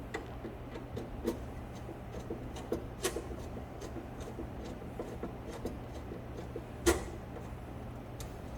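Scattered light clicks and taps from handling electrical wires and terminal connections, with a sharper knock about three seconds in and the loudest one about seven seconds in, over a steady low hum.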